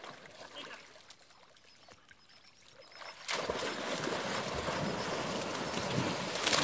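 Dogs splashing through shallow lake water. Light water sounds at first, then about halfway in a sudden loud, continuous splashing as dogs run through the shallows.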